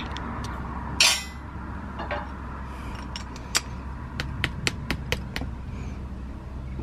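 Steel swing-arm axle clinking against the spacer and bearing inner races as it is jabbed into a motorbike jackshaft: one sharp metal clink with a brief ring about a second in, then a quick run of light, irregular taps. The spacer is not yet centred, so the axle hangs up and will not go through.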